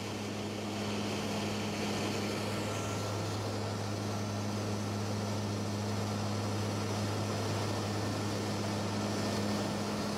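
Steady cabin drone of a CASA C-212 twin-turboprop in flight: a low, even propeller hum over a broad rush of engine and air noise.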